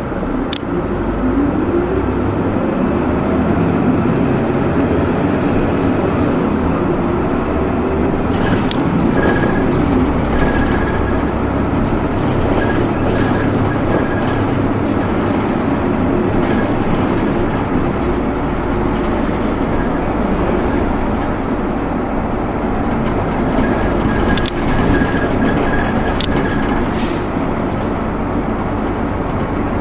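City bus running between stops, heard from inside the passenger cabin: a steady mix of engine and road noise, with the engine note rising over the first few seconds as the bus gathers speed. A short repeating high tone sounds twice along the way, and there are a few light clicks and knocks.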